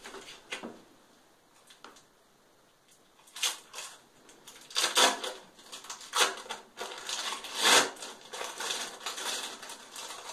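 Cheese packaging crinkled in short irregular bursts, to call a dog that is trained to come to the sound of cheese.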